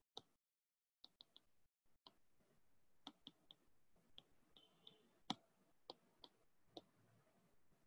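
Faint, irregular clicks of a stylus tip tapping and dragging on a tablet's glass screen during handwriting, over near-silent room tone.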